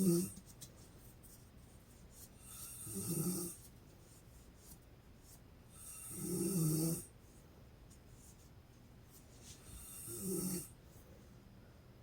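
A woman snoring in her sleep, with a pig-like snorting quality: three snores about three and a half seconds apart, each building over about a second and then stopping short, with the tail of another right at the start.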